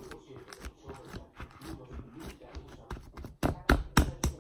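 A run of sharp, irregular clicks and taps from close handling, with several louder clicks close together near the end.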